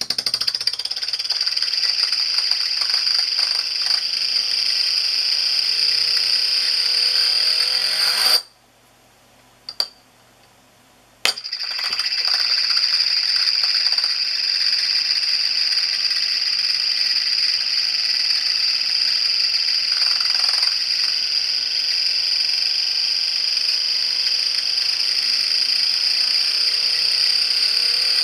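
A DIY Euler's disc, a tungsten carbide ring with a brass core, spinning and rolling on a glass mirror, making a loud, high, steady ringing whir with a sliding undertone. About eight seconds in the sound sweeps quickly upward and stops abruptly, the disc's final rattle as it settles flat. After a near-silent gap with a single click, the whir starts again suddenly about eleven seconds in.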